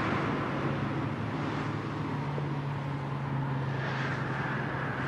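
Steady rush of road traffic with a low engine drone under it, and a vehicle passing close about four seconds in.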